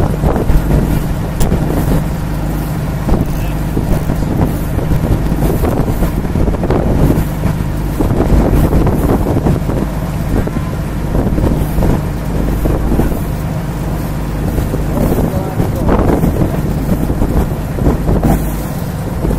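Boat engine running with a steady low hum, with wind rumbling on the microphone.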